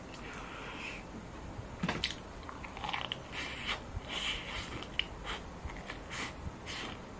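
Close-up biting and chewing of soy-sauce fried chicken: a run of short, crisp crunches and chewing sounds, busiest from about two seconds in.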